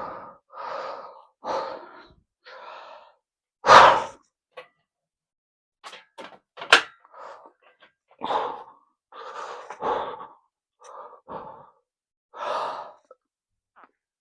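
A man breathing hard through a heavy barbell squat set, in a string of short, forceful breaths and gasps. The loudest, most forceful breath comes about four seconds in, and a sharp short knock is heard near seven seconds.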